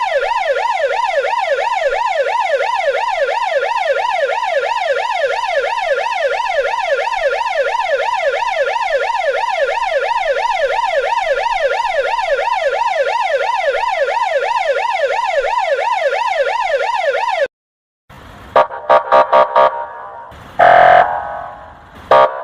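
Russian police car siren in a fast wail, its pitch sweeping up and down a few times a second. It cuts off about seventeen seconds in. A quick string of short, loud honks from the 'kryakalka' quacking special signal follows, then a longer honk and a few more near the end.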